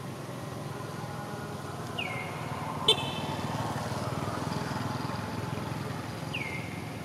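A motor vehicle running past, a steady low rumble that swells through the middle, with a sharp click about three seconds in and two short high chirps that slide down in pitch.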